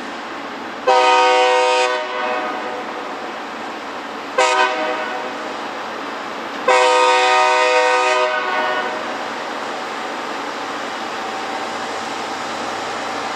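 Loram rail grinder train's air horn sounding three blasts, long, short, long, over the steady rumble and hiss of the train working along the rail.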